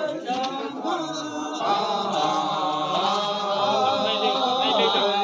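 Buddhist chanting: voices recite a melodic chant that runs on without a break.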